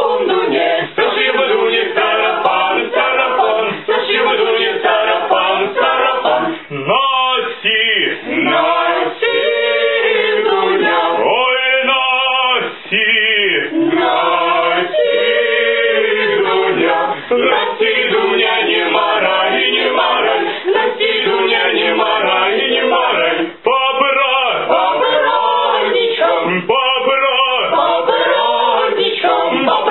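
A small group of young men singing together a cappella, their voices blending in held, gliding notes.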